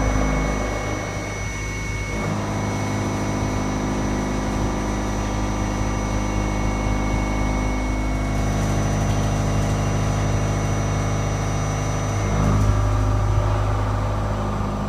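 Hwacheon CNC vertical mill's spindle and face mill cutting across a metal part. The cut gives a loud, steady run of several whining tones that shift about two seconds in and again about twelve seconds in. The cut is at its fixed programmed feed rate, with the adaptive feed control off.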